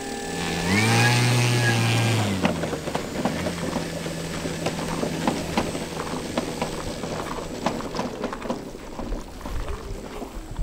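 Brushless electric motor (Leopard LC8072 outrunner) of a giant-scale RC Robin DR 400 spinning its large propeller with a steady whine. About a second in it is throttled up, the pitch rising and holding for over a second before dropping back. It then runs on at a low steady idle, with irregular soft clicks and rustling over it.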